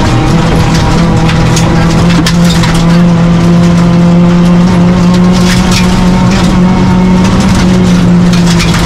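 Proton Neo rally car's engine heard from inside the cabin, pulling hard at a nearly steady pitch on a gravel straight. Loose gravel and stones tick and rattle against the car's underside throughout.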